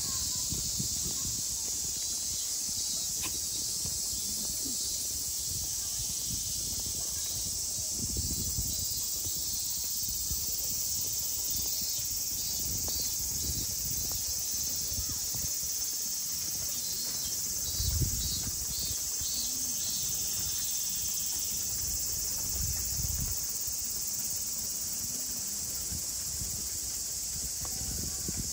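Summer cicada chorus: a steady high hiss that does not let up, with a faint pulsing call in the middle. Occasional low rumbles and bumps, the clearest about 18 seconds in.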